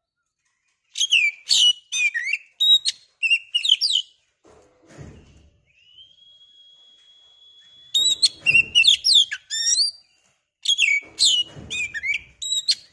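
Oriental magpie-robin (kacer) singing in rapid bursts of varied whistles and chirps, with one long, steady whistled note held for about two seconds in the middle.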